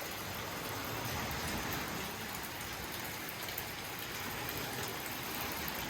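Light rain falling: a steady, even hiss.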